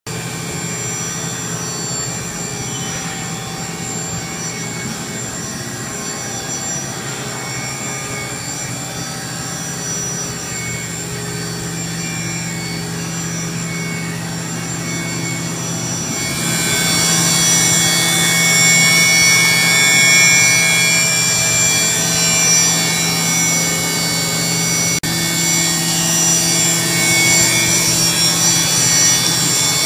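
Running machinery: a steady whine and hum made of several held tones. About halfway through it grows louder, with higher whining tones coming in.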